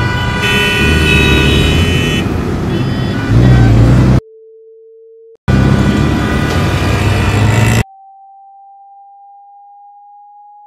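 Loud road traffic with car horns honking, cut off abruptly twice by a steady pure tone. A short lower tone comes about four seconds in, and from near the end a higher tone holds, rising slightly in pitch.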